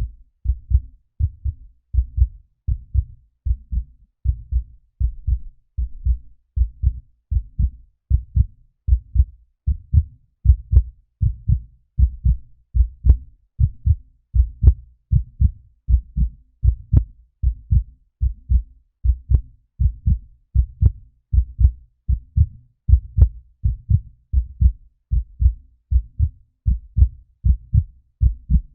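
Heartbeat sound effect: a steady, even rhythm of low, dull double thumps (lub-dub), about one beat a second.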